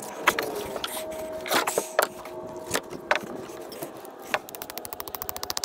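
Scattered knocks and scrapes of hand work on dock parts, then about a second of rapid, evenly spaced clicking near the end, like a ratchet.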